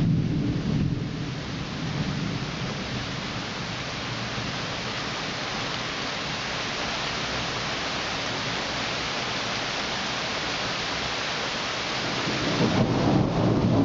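Thunderstorm: rain falling steadily, with a rumble of thunder at the start that dies away within a couple of seconds and another rumble of thunder building near the end.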